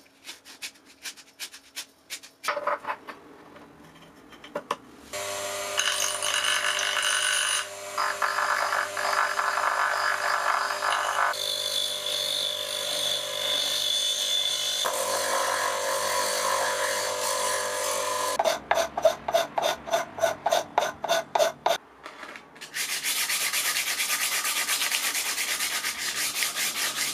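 Abrasive rubbing of a PLA plastic part: short hand strokes of rolled sandpaper opening the part's bore, then a bench grinder motor hums steadily while a chisel scrapes the spinning plastic faceplate. Later come back-and-forth strokes of the part rubbed on a sheet of sandpaper, about three a second, then faster continuous rubbing.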